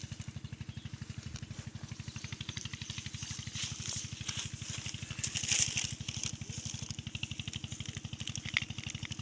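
A small engine running steadily at idle, an even low thudding of about a dozen beats a second, with a high hiss above it that swells briefly about five and a half seconds in.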